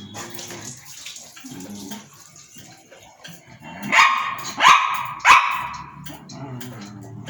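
A dog barking three times in quick succession, short sharp barks a little over half a second apart, about four seconds in.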